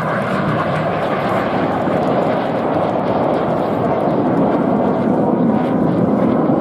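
Jet engines of the Red Arrows' BAE Hawk T1 aircraft, a steady rumble with no breaks or sharp events.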